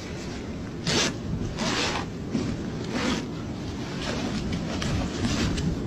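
Scuffling on dry, stony ground: a series of rough scraping and rustling bursts from bodies and clothing as a man is grabbed and held down, the loudest about a second in.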